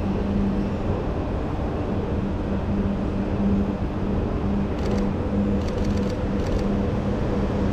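Steady mechanical hum and air rush of a shopping-centre atrium's building services, with a low drone holding steady throughout. A few faint ticks come about five and six seconds in.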